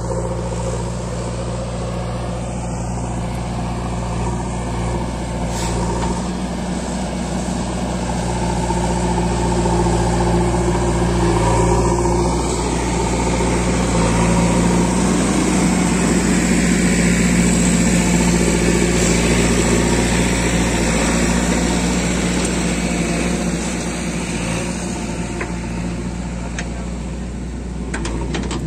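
Diesel engines of a farm tractor and a backhoe loader running steadily with an even low hum, growing louder for several seconds in the middle. There are a few sharp clicks near the end.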